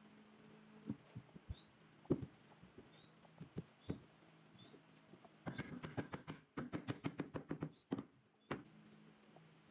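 Wooden frame parts knocking together as a top rail is fitted down onto the upright posts: a few scattered knocks, then a quick run of taps and knocks lasting about two seconds past the middle, and one last knock. A low steady hum sits under the quiet stretches.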